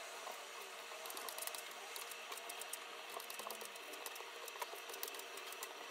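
Kitchen knife cutting raw chicken breast on a bamboo cutting board: many small, irregular clicks of the blade against the wood over a faint steady hiss.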